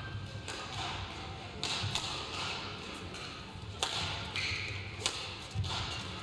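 Badminton rackets striking the shuttlecock in a rally, a few sharp hits a second or two apart, over the low murmur of an indoor arena.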